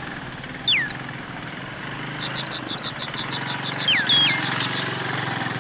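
Birds calling: a clear whistle that slides downward, heard twice, and a rapid chattering run of high notes, about eight a second, in the middle of the stretch. Under them run a steady high hiss and the low hum of an idling engine.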